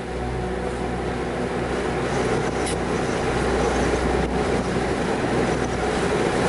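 Road noise heard from inside a moving car: tyres hissing on wet pavement over a low engine and road rumble, growing slightly louder, with a couple of faint clicks.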